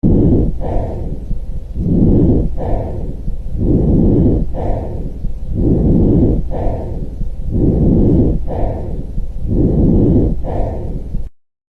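Lung breath sounds as heard through a stethoscope: a low, rushing breath drawn in and let out in an even rhythm, about one breath every two seconds, six in all, cutting off suddenly near the end.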